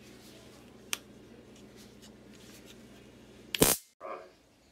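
Vipertek mini stun gun handled in the hand: a single sharp click about a second in, then a short, very loud burst near the end that cuts off abruptly.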